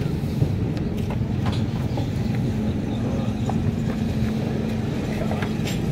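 A motor running steadily with a low rumble, with a few light clicks over it.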